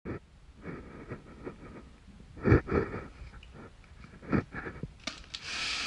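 Handling noises around a paper-wrapped parcel: scattered light knocks with two louder thumps, then a rustling hiss near the end.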